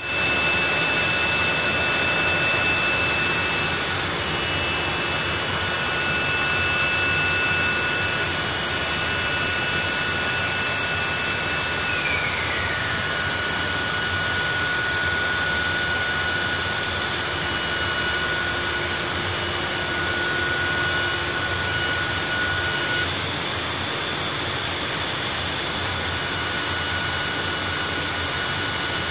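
Printing and coating plant machinery running: a steady loud roar with several high whining tones over it. About twelve seconds in, one whine slides down in pitch, and later another whine drops out for a few seconds and comes back.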